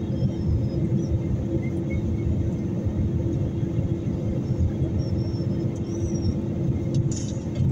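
Airliner cabin noise during the climb after takeoff: the jet engines and rushing air make a steady low roar with a constant hum under it. A short hiss comes in near the end.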